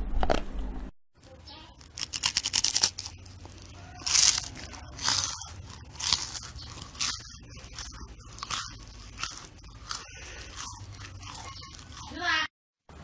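Crunching noises: a dense crackle, then separate short bursts about once a second.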